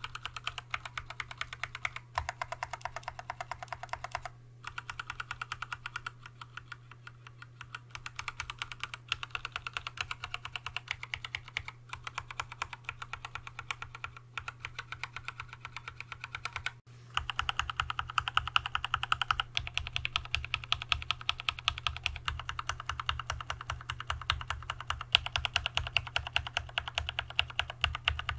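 Fast, continuous typing on an Archon AK87 mechanical keyboard fitted with Zeal Tealios V2 linear switches and Leopold keycaps, first with the switches unlubed. After a cut about 17 s in, the same typing is heard with the switches lubed with Christo-Lube MCG 129, and the keystrokes are louder and deeper.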